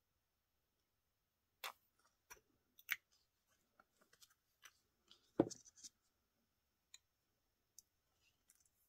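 Quiet handling noises of scissors and craft supplies on a tabletop: scattered light clicks and taps, with one louder knock about five and a half seconds in.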